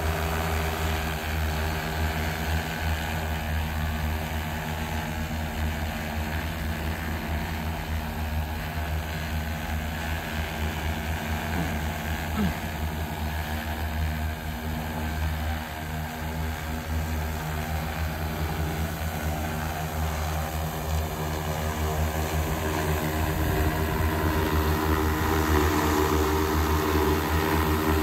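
X1400 industrial multirotor drone hovering, its propellers giving a steady hum that grows louder near the end as it comes closer.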